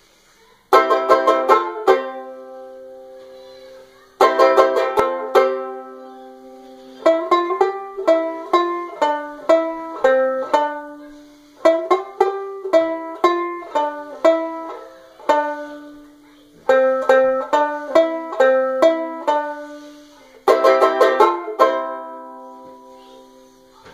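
Kmise banjo ukulele (banjolele) being played: bursts of quick strummed chords that ring out, then a long run of picked single notes, several a second, and a final strummed chord left ringing.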